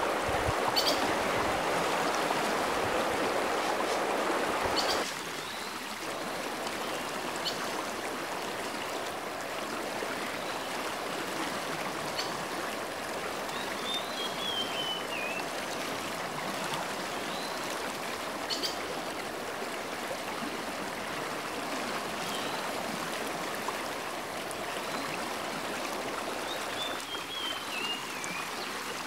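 Small creek flowing over stones: a steady rush of running water that drops noticeably in level about five seconds in.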